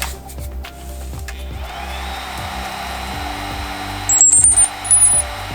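Hubsan Zino Pro Plus drone powering on: a few clicks, then about four seconds in a short series of high-pitched beeps stepping up in pitch, with one more higher beep near the end, over a steady whirring hum.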